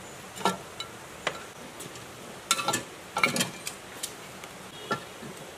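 Hand tools clicking and tapping on the metal of a large electric motor being dismantled: a scattering of sharp metallic taps with brief ringing, several close together near the middle.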